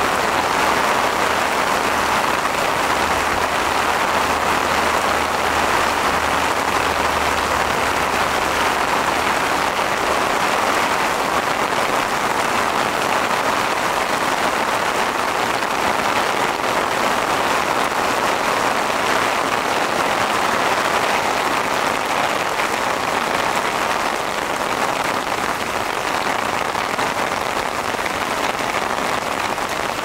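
Torrential rain falling steadily, a dense, even hiss of drops that holds at one level throughout.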